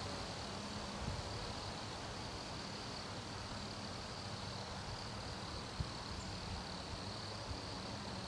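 Wood crickets (Nemobius sylvestris) singing in a chorus: a steady, high-pitched song without a break, over a low rumble, with one short tick about six seconds in.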